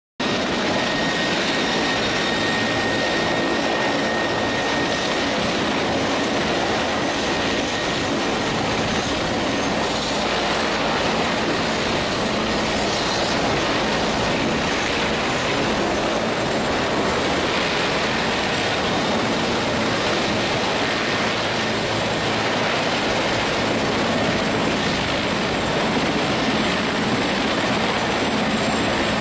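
Mi-17V-5 helicopter's twin turboshaft engines and main rotor running steadily on the ground, with a thin high turbine whine that fades about ten seconds in.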